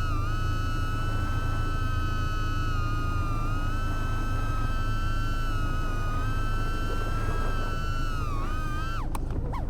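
Motors and propellers of a 3.5-inch FPV quadcopter (AOS 3.5 V2) whining at a fairly steady high throttle, with a low rushing rumble underneath. Near the end the whine dips, then jumps up and down with a few sharp clicks as the throttle is chopped.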